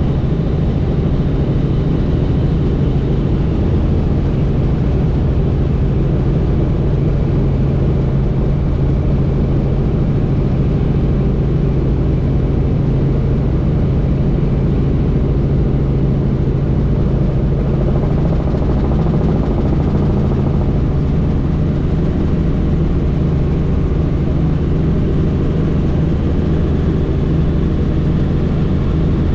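Helicopter in flight, heard from on board: a loud, steady drone of the engine and rotors with a constant low hum that does not change.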